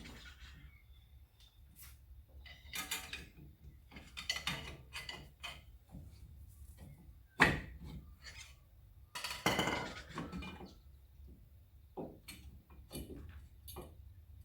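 Irregular metallic clinks, knocks and rustling of tools and parts being handled at a car's rear drum brake, with two sharper knocks: one at the start and one about seven seconds in.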